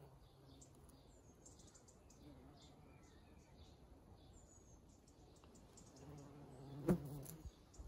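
Bumblebee buzzing in flight, a low hum that comes and goes and grows louder about six seconds in, with a sharp tap near the end. Garden birds chirp faintly throughout.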